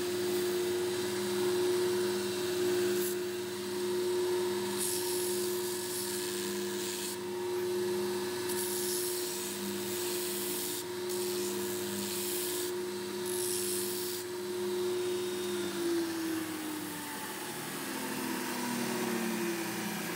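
Heel scouring machine running with a steady motor hum while a boot's stacked leather heel is pressed against its spinning abrasive drum, each pass giving a harsh sanding hiss. Near the end the hum falls in pitch as the machine winds down.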